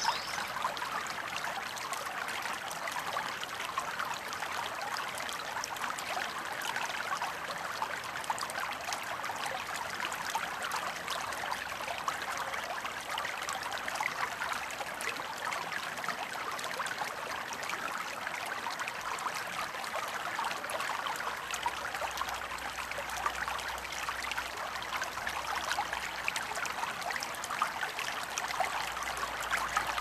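Shallow stream running over stones: a steady, bubbling trickle and babble of water.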